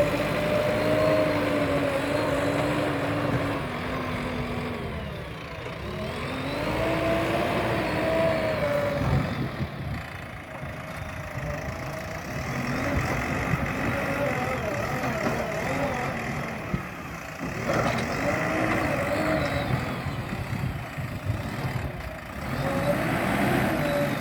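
JCB backhoe loader's diesel engine working under load, its pitch rising and falling in slow swells every few seconds.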